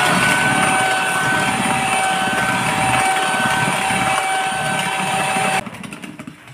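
Electric hand mixer running at a steady whine, its beaters churning cake batter in a steel bowl. The motor cuts off near the end and the sound fades away.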